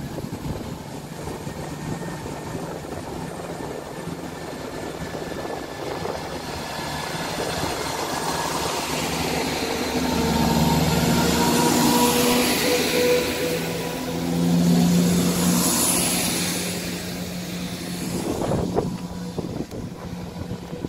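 Class 170 Turbostar diesel multiple unit running along the platform: the underfloor diesel engines hum steadily, and the sound swells in the middle as the coaches pass close by with a hiss of wheels on rail. A few clicks come near the end.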